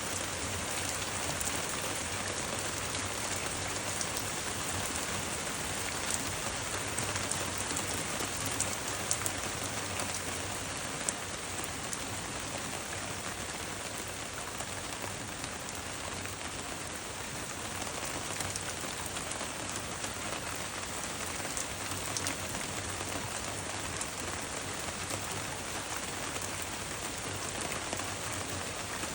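Steady rain falling on a surface: an even hiss with scattered individual drop ticks, a few sharper drop hits in the first third.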